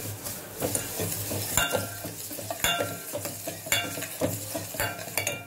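Steel ladle stirring vermicelli roasting in ghee in a stainless steel pot: a light sizzle and scraping, with the ladle knocking against the pot about once a second and ringing briefly.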